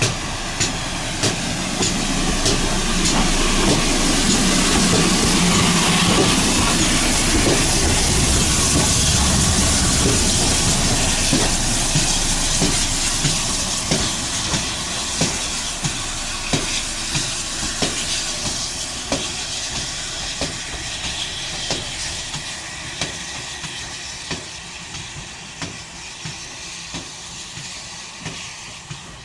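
Steam locomotive running light past at low speed: steam hissing over a low rumble and a regular run of sharp clicks from the wheels. It is loudest about six to ten seconds in, then fades as it draws away.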